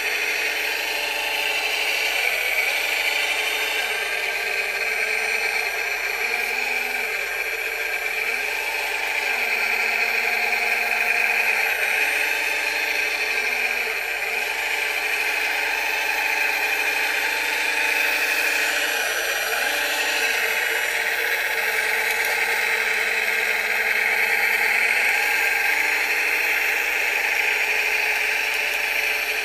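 Scale-model Caterpillar 966 wheel loader's electric drive motors and gearing whining, the pitch rising and falling every few seconds as it drives back and forth grading dirt.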